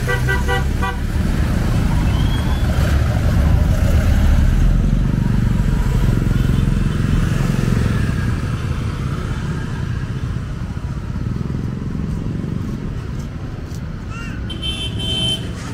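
Street traffic: a motor vehicle's low engine rumble swells to its loudest about four seconds in, then eases off. A short series of horn toots sounds at the very start.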